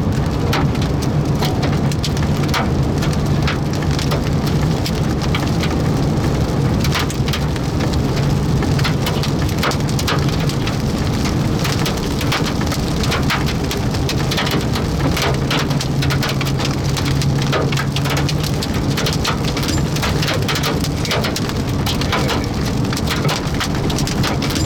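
Heavy rain and hail pounding a vehicle, with many sharp hailstone impacts over a steady low drone, heard from inside the cabin.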